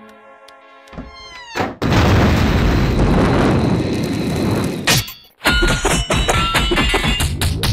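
Cartoon slapstick fight sound effects: soft music, then a falling glide, then a loud continuous din of crashing and scuffling for about three seconds. It cuts out suddenly, and a second round of clattering hits with musical tones follows.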